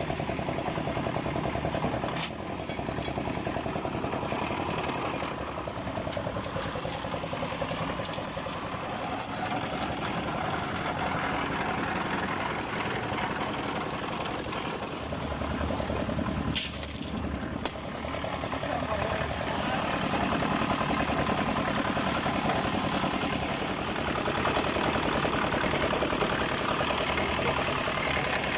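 Construction-site machinery: an engine running steadily, with voices in the background. It breaks off abruptly twice, about 2 seconds in and about two-thirds of the way through.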